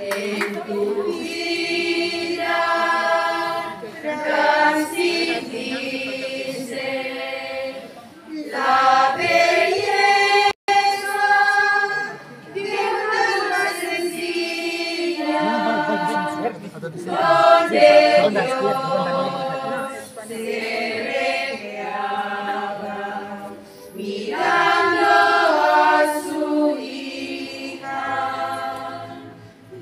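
A small choir of women singing a hymn unaccompanied, in phrases of a few seconds with short breaks between them.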